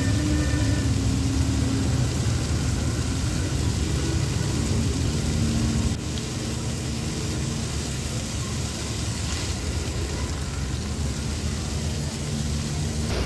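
Illuminated fountain jets spraying and splashing down into the basin: a steady rushing of falling water with a low rumble beneath, easing slightly about halfway through.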